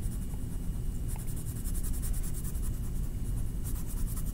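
Quick back-and-forth colouring strokes scratching across a paper card, coming in rapid runs.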